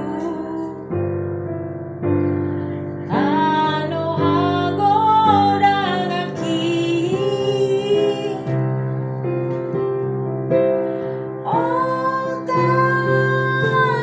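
A woman singing a slow song while accompanying herself with chords on a digital piano. Her voice comes in about three seconds in and again near the end, over chords that change every second or so.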